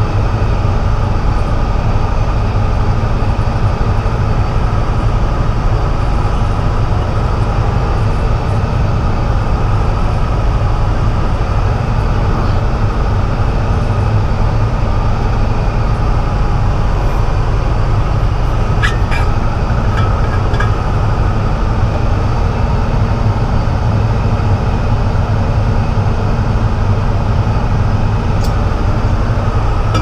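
Peterbilt truck's diesel engine and drivetrain heard from inside the cab while driving, a steady low running sound with cab and road noise.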